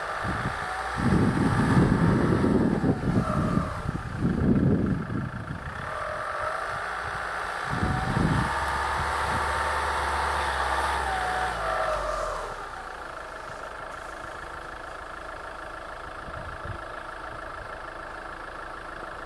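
UAZ Patriot SUV engine revving up and down as the vehicle works through deep snow on a tow strap, with heavy low rumbles in the first few seconds. It drops back to a steady idle about twelve seconds in.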